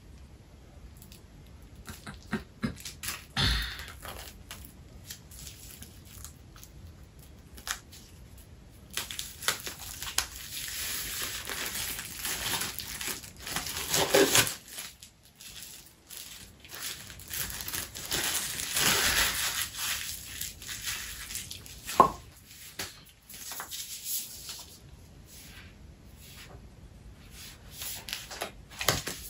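Clear plastic shrink-wrap being torn and peeled off a hardcover book: a few small clicks at first, then a long stretch of crackling and crinkling plastic, and a sharp tap about two-thirds of the way in.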